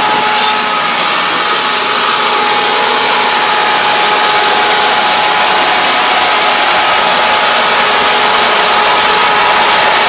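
Combine harvester running steadily at working speed: an even machine noise with a constant high whine over the engine.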